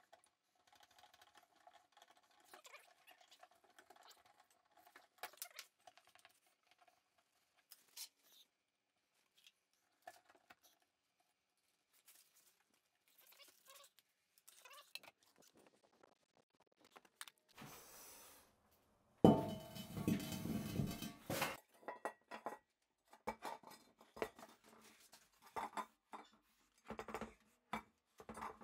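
Scattered clicks, clinks and handling noises of metal plumbing fittings and hand tools being worked, with a much louder burst of noise lasting about two seconds about twenty seconds in.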